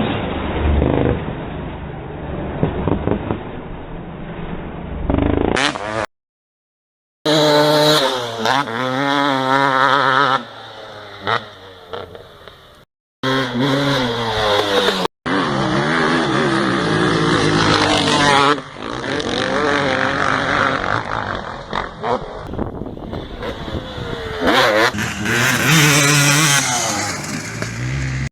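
KTM 250SX two-stroke motocross engine revving hard, its pitch climbing and dropping again and again as it runs up through the revs and shifts. The sound breaks off in short silent gaps where separate clips are joined.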